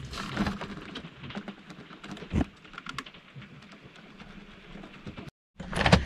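Scattered light clicks, taps and rustles of a hand working among the wiring and speedometer cable behind an RV's dashboard panel, with one louder knock about two and a half seconds in. The sound drops out briefly near the end, followed by louder handling noise.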